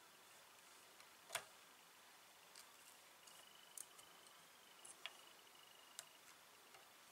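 Near silence broken by scattered faint clicks and ticks as a whip finish tool and the tying thread are worked at the hook, one sharper click about a second and a half in. A faint, thin, high tone sounds for a few seconds in the middle.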